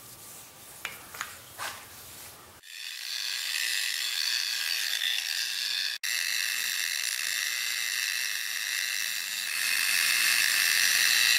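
Variable-speed angle grinder with a denim buffing pad running on a granite countertop edge, buffing on wet car wax. It starts suddenly about two and a half seconds in, after a few faint handling sounds. Its high steady whine breaks off for an instant near the middle and grows louder near the end.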